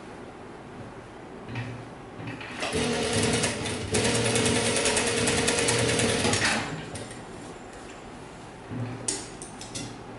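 Industrial single-needle lockstitch sewing machine stitching a seam through trouser fabric. It starts slowly about two and a half seconds in, runs fast with a rapid even stitch rattle, and stops a little past halfway. A few light clicks follow near the end.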